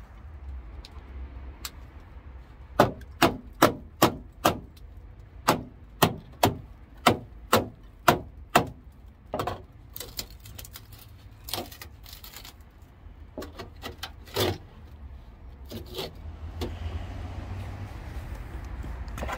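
Hammer blows on the rust-rotted steel sill and wheel arch of a Talbot Express campervan. About a dozen sharp metallic knocks come at roughly two a second, then lighter, scattered knocks follow. The corroded metal breaks away under the blows, a sign that it has rusted through.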